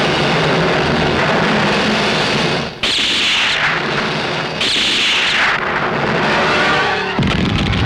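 Film gunfire sound effects from a rifle shootout: a dense, loud wash of shots with two falling ricochet whines, the first about three seconds in and the second about a second and a half later.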